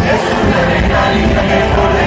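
Live pop concert music at full volume: an amplified band with drums playing while a man sings into a microphone.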